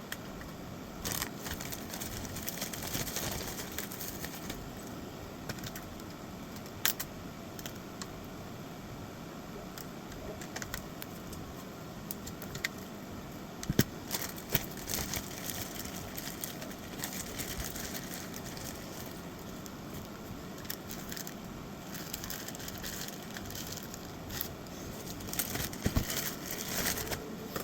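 Scattered small clicks, taps and crinkling from handling phone parts and repair tools, over a steady background hiss, with a cluster of clicks about 14 seconds in and a busier patch of crinkling near the end.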